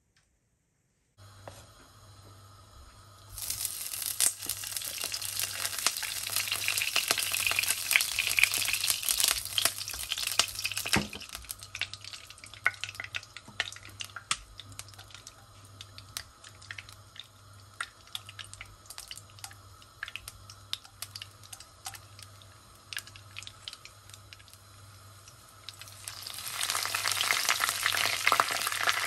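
Hot oil and ghee sizzling and crackling in a pan. The sizzle starts about three seconds in and dies down to scattered pops after about ten seconds. Near the end it flares up loudly again as curry leaves and whole spices such as cinnamon and cloves are dropped into the oil.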